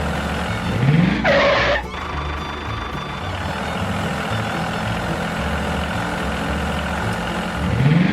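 Vehicle engine-like running sound over background music, with a rising swoop and a loud short burst about a second in; the same swoop and burst come round again near the end.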